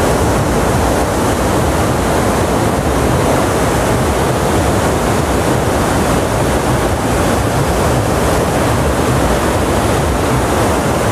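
Monsoon-swollen Ganga water rushing out through an open barrage gate: a loud, steady rush of churning water.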